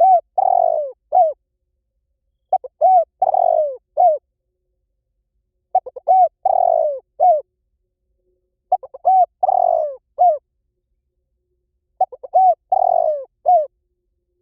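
Spotted dove cooing: the same phrase five times, about every three seconds. Each phrase is a few quick short notes, then a longer falling coo, then a short closing note.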